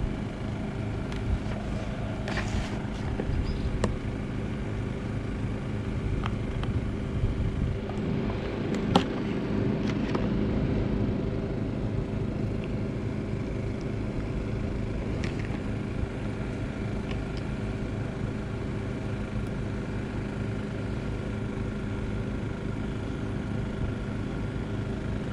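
A steady low motor hum of unchanging pitch, with a few light clicks from small valve parts and O-rings being handled; the sharpest click comes about nine seconds in.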